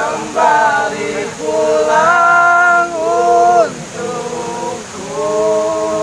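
Young men singing a song together, in long held notes with slides between them and short breaks between phrases, over the steady rush of a waterfall.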